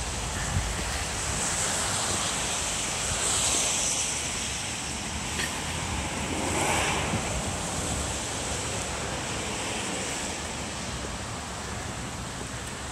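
Wind buffeting the microphone outdoors: a gusty rumble with a steady hiss over it that swells twice, a few seconds in and about halfway through.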